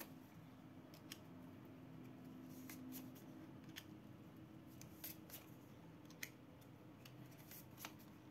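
Near silence: a faint low room hum with about a dozen short, sharp clicks scattered irregularly through it.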